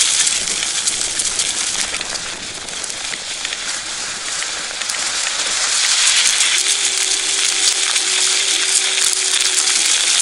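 Dragon GTRV2 electric scooter's tyres rolling over gravel, dry leaves and bark on a dirt trail: a dense crackling, crunching hiss that eases a little about two seconds in and grows louder past the middle. A thin steady tone comes in past the middle and holds for about three seconds.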